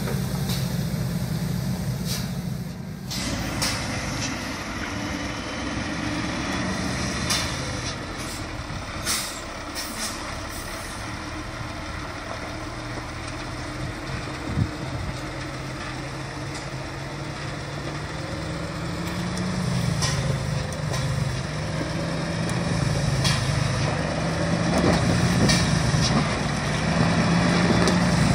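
Diesel engines of heavy log trucks labouring on a dirt track, switching to a second truck after a cut about three seconds in. A few sharp knocks sound along the way, and the engine grows louder and works harder in the last third.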